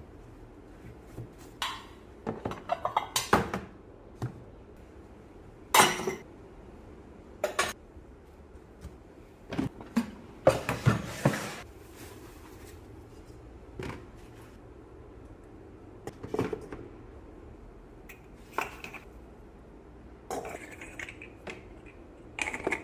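Metal pooja vessels and utensils being picked up and set down: scattered clinks and knocks, irregularly spaced, with a longer rubbing stretch about ten seconds in.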